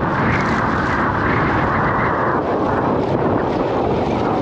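Strong wind blowing across the microphone, a steady rushing noise that swells a little now and then.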